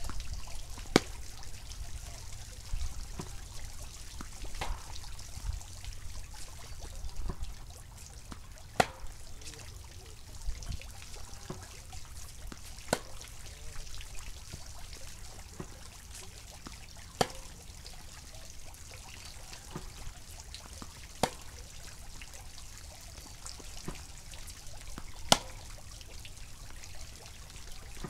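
Tennis ball struck by a Yonex VCORE Tour G racquet on groundstrokes: a sharp pock about every four seconds, with fainter ball hits in between. A steady low rumble and hiss runs underneath.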